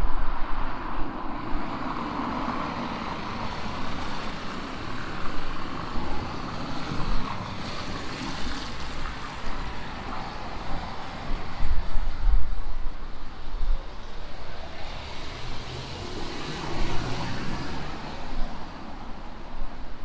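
Street ambience on wet pavement: the hiss of car tyres on a rain-soaked road, swelling twice as vehicles pass, over a low rumble.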